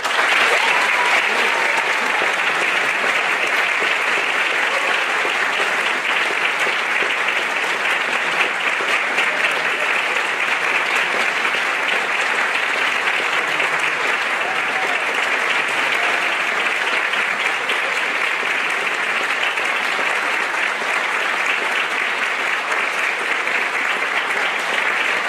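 Concert-hall audience applauding, breaking out at once at full strength and holding steady throughout.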